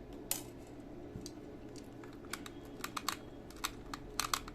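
Light, irregular clicks and ticks of a small screwdriver and plastic mouse parts being handled while a screw is taken out of a Corsair Katar Pro mouse. There is one sharp click early on, then the clicks come more often in the second half, with a pair of louder ones near the end.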